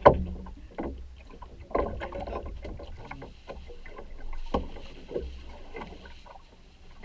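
Water splashing and irregular hollow knocks around a small boat, with a sharp knock at the start and another about four and a half seconds in, over a steady low rumble.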